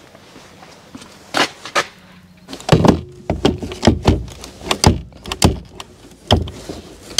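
A run of loud knocks and bumps, like equipment being handled against metal: two at first, then about two a second from a third of the way in.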